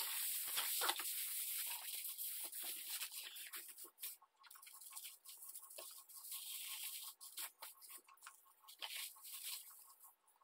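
Aluminum foil crinkling and rustling as it is handled and pressed down, a run of irregular crackles.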